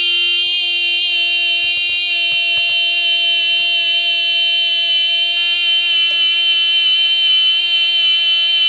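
A loud, long electronic buzzing beep held at one steady pitch, with a few faint clicks under it about two seconds in.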